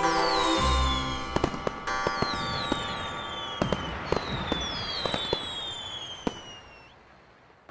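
Fireworks: several whistles falling in pitch, a string of sharp bangs with crackling between them, all fading away near the end.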